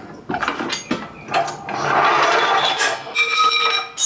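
Small hydraulic floor jack being lowered all the way: a few clicks and clanks of the handle, a rushing noise in the middle, and a high squeak near the end.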